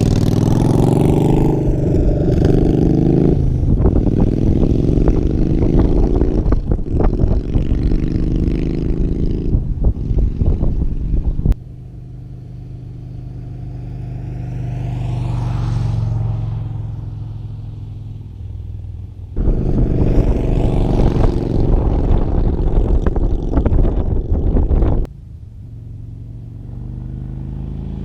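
Yamaha Bolt's air-cooled V-twin run through an aftermarket-versus-stock exhaust test, revving with the pitch rising and falling. It cuts abruptly to quieter, steadier running about 11 seconds in, comes back loud a little before 20 seconds, and drops again near 25 seconds.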